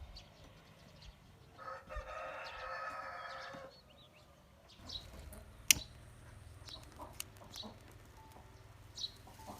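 A rooster crowing once, a single call about two seconds long, followed by scattered small chirps and clicks.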